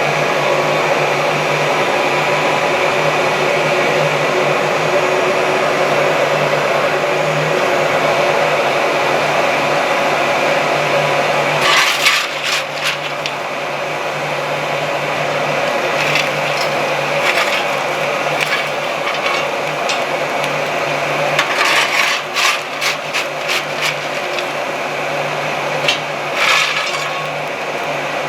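An electric fan running steadily with a low hum, either the shop's ventilation fan or the forge's blower. From about twelve seconds in, scattered sharp clicks and knocks sound over it.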